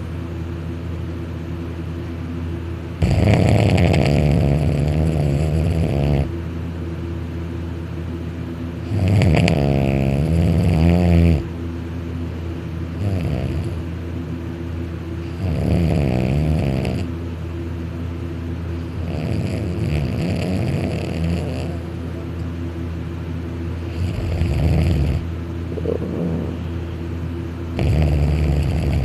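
A man snoring very loud, asleep on his back with his mouth open. About six long snores come several seconds apart, each one to three seconds, and some have a wavering higher pitch. A steady low hum runs underneath.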